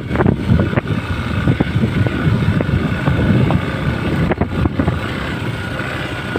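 Hero XPulse 200's single-cylinder engine running as the motorcycle is ridden over rough ground, with wind rumbling on the microphone and a few knocks.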